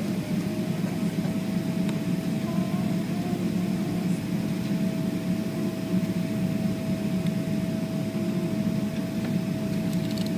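Steady cabin noise inside a Boeing 777-300ER airliner: a low, even rumble with one steady whine running through it.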